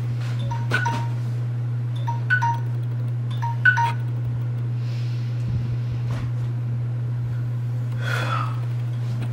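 Phone alarm playing a repeating chime melody that stops about four seconds in, over a steady low hum. A brief rustle of bedding near the end.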